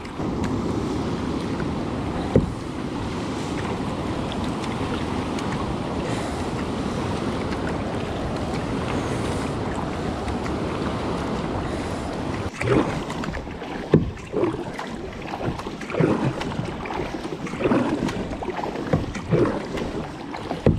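Kayak on the water: a steady rush of wind on the camera microphone for the first half, then irregular water splashes and knocks, with a sharp knock about two seconds in.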